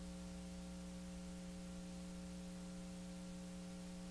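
Steady electrical hum with a faint hiss.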